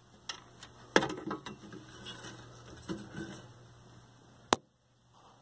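Scattered clicks and rattles of the high-voltage cage on a 1973 Admiral hybrid colour TV chassis being unlatched and opened by hand, over a faint low hum. A single sharp click about four and a half seconds in, then near silence.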